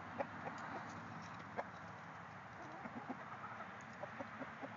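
Hens clucking in short, scattered notes over a steady background hiss.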